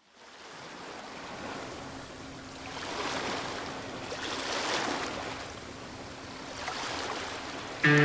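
Sea waves rushing and washing, fading in from silence and swelling and ebbing every second or two, over a faint steady low hum. Loud sustained music chords come in at the very end.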